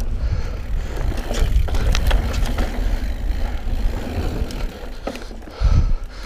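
Mountain bike rolling along a dirt singletrack trail: steady tyre noise and low rumble, with scattered clicks and rattles from the bike over bumps. A heavy low thump comes near the end.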